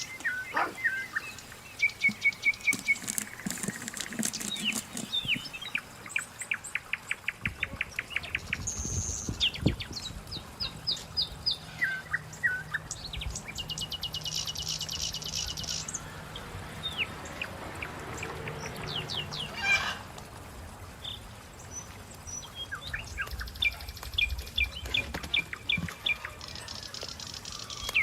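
Small birds chirping and singing, with fast trills of quick repeated high notes and varied calls.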